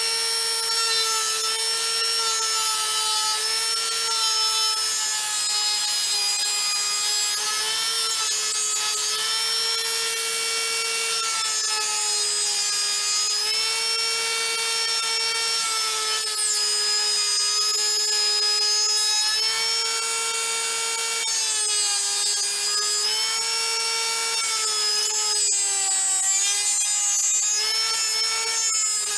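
Handheld rotary tool with a small bit running steadily with a high whine as it grinds and smooths the work, its pitch sagging a little now and then as the bit is pressed in.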